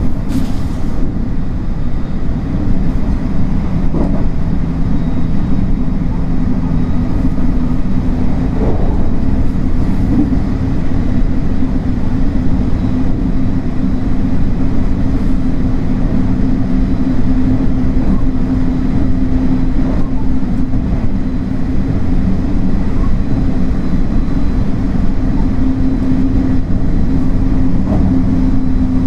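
A JR West 225 series 100-subseries electric train running: a steady rumble of wheels on rail with a low hum, and a few faint knocks.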